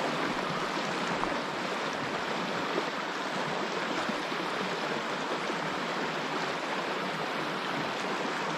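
A river's current rushing steadily.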